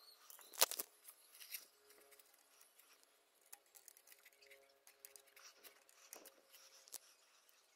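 Faint handling clicks and taps of small plastic and metal parts as a thumb throttle and its cable are fitted on a handlebar, with one sharper click about half a second in.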